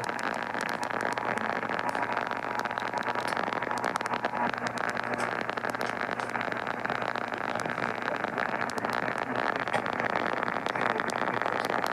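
Radio receiver static: a steady hiss with a constant scatter of sharp crackling clicks.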